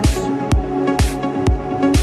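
Electronic dance music with a steady beat, about two kick-drum thumps a second, under held chords.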